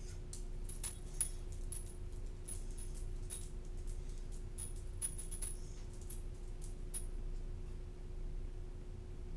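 Light metallic jingling and clicking: a scatter of small clinks with a faint high ring, thinning out and stopping about seven seconds in, over a steady low hum.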